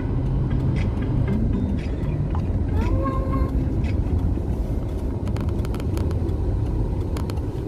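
Steady low road and engine rumble inside a moving car, with a few light clicks and a short rising tone about three seconds in.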